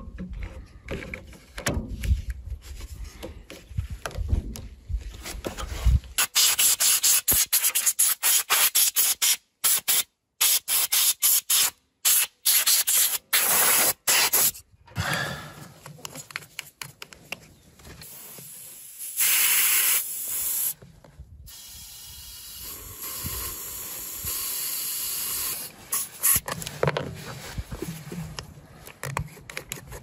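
Compressed air hissing in many short, loud blasts, then a longer hiss and a steadier one as an air-hose chuck fills a small pneumatic tyre on the woodchipper. Low handling knocks and rustling come first.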